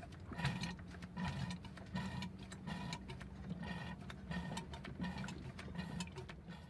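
Hand-operated oil extraction pump being worked in steady, even strokes, about five every four seconds, sucking old automatic transmission fluid out of a boat gearbox through its dipstick hole into a bottle.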